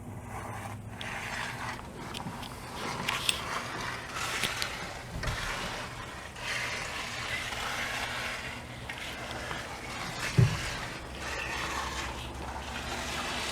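Uneven scraping and rattling of work on a fresh concrete pour over a steady low hum, with one heavy thump about ten seconds in.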